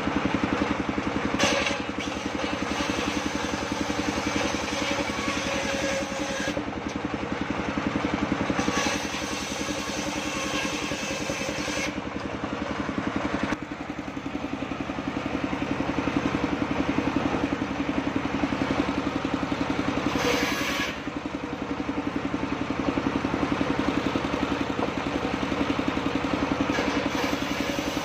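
Engine of a vehicle-mounted mobile circular sawmill running steadily, driving a large saw blade. Several times the blade cuts through timber, adding a hissing cutting noise over the engine.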